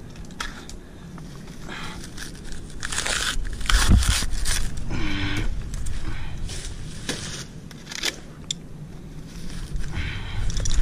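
Dry palm fronds crunching, scraping and crackling as a frond is cut and pulled off the tree, with a heavy thump about four seconds in.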